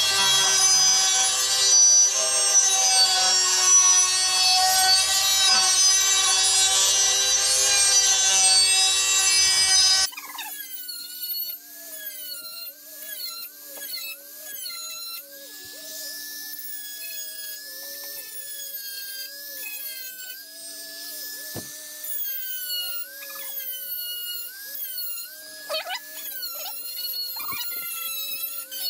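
Power tool sharpening a mower blade: loud metal-on-metal grinding for the first ten seconds, then, after an abrupt change, a quieter running whine whose pitch dips and recovers again and again as the tool is pressed against the blade.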